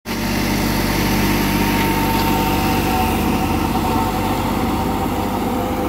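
New Holland 3630 tractor's diesel engine running steadily under load, pulling an 8-foot Maschio super seeder, with a thin steady whine over the engine note.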